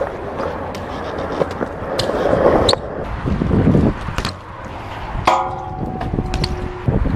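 BMX bike riding on a concrete skatepark: tyres rolling, with sharp knocks and clacks as the bike lands and hits ledges, and a ringing metal scrape of a grind a little over five seconds in.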